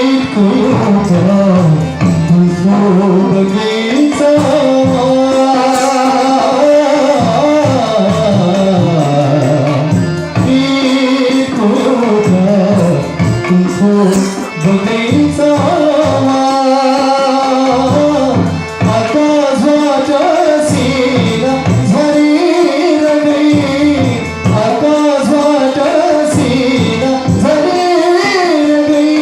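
A Nepali song: a voice singing a bending melody over tabla and other instruments.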